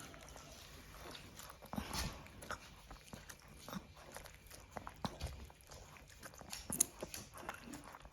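A dog's mouth sounds as it is fed milk and mushy kibble from a syringe: irregular wet smacking and chewing clicks, a few of them louder.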